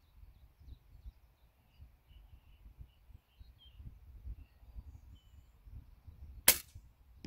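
A compound bow shot once, about six and a half seconds in: a single sharp snap of the string and limbs on release, after a long held draw. A low rumble and faint chirps lie underneath.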